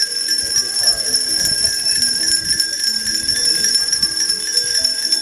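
Many hand bells ringing at once, a steady jangle of overlapping strikes that does not let up.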